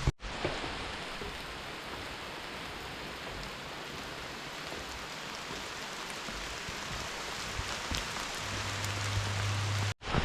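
Heavy rain falling steadily, a dense even hiss with a few scattered drop ticks.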